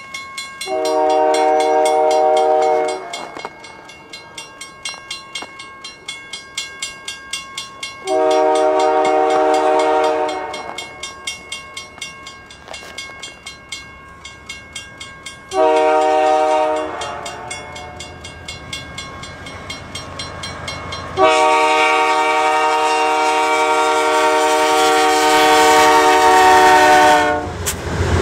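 Multi-chime air horn of a CN GE C44-9W diesel locomotive sounding the grade-crossing signal: long, long, short, long, the last blast held about six seconds. In the gaps a regular tick sounds about twice a second, and near the end the locomotives' engines and wheels grow loud as the lead units pass.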